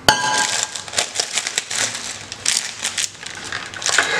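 Clear plastic wrapping crinkling and rustling as hands work it off a wooden board, starting with a sharp knock.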